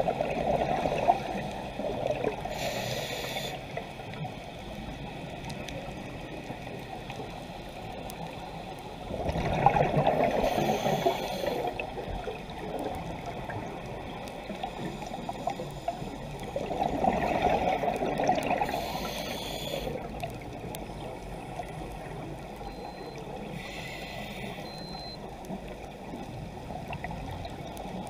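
Scuba diver breathing through a regulator underwater: a rushing burst of exhaled bubbles about every eight seconds, three in all, with short high hisses from the regulator on the inhales in between.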